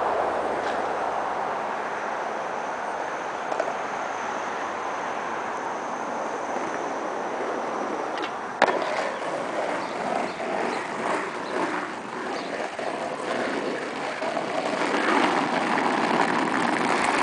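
Skateboard wheels rolling on rough asphalt, with one sharp clack about halfway through as the board lands an ollie over a gap. After the landing the rolling is grainy and uneven, growing louder near the end.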